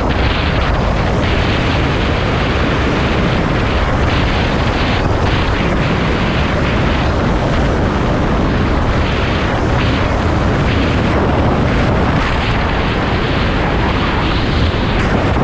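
Steady wind buffeting on the microphone of a moving motorcycle, with the bike's engine and road noise underneath.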